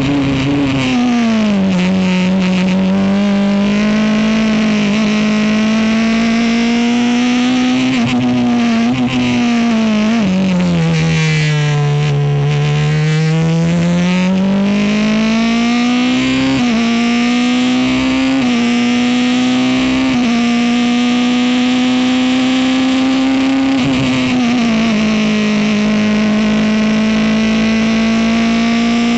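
Ligier race car's Honda engine at racing revs. Its pitch drops early on, then dips deeply as the car slows for a corner, lowest about 12 s in, and climbs back under acceleration. Short drops in pitch at about 16, 18 and 24 s in mark gear changes.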